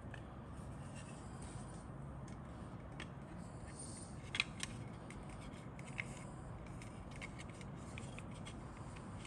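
Plastic scale-model fuselage being handled, with a few light clicks and faint rubbing over a steady low hum. The clicks come about four and a half seconds in, twice close together, and once more about a second and a half later.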